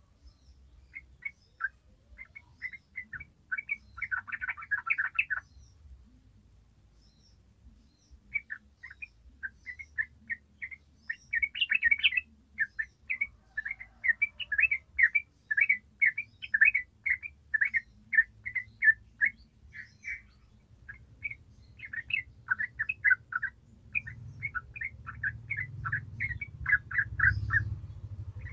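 Yellow-vented bulbul singing: fast runs of short bubbly chirping notes, with a pause of a couple of seconds after the first burst. A low rumble underneath grows louder near the end.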